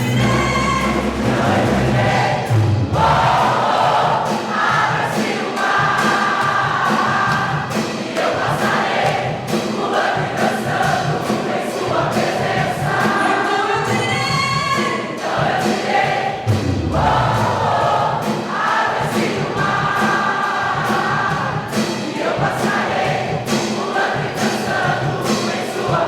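A group of voices singing a song together with musical accompaniment.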